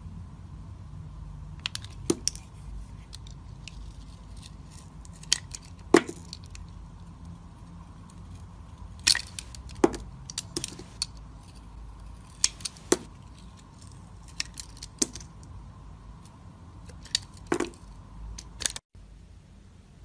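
Snap-off utility knife blade cutting into a bar of soap: scattered sharp crackles and clicks as slices break away, over a faint steady hum.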